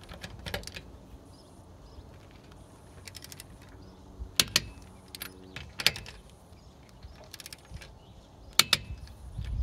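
Click-type torque wrench tightening car wheel lug nuts to 76 foot-pounds: a series of sharp metallic clicks spread over several seconds as the wrench reaches torque and is ratcheted and repositioned on each nut.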